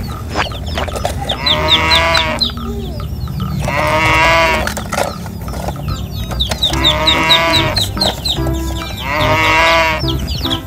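Background music with a steady beat and rows of short high chirps, over which a farm-animal call sounds four times, each just under a second long, about every two and a half seconds.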